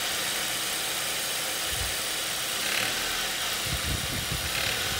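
Ford Duratec HE 2.0-litre petrol engine idling with its accessory belt running, and an irregular low knocking from a failed overrunning alternator pulley (OAP) that has seized and no longer freewheels.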